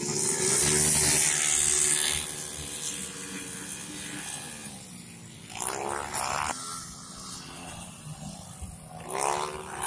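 Small racing motorcycles passing at high revs, one after another: the loudest pass comes in the first two seconds, then two more about six and nine seconds in, each engine note rising in pitch as the bike accelerates.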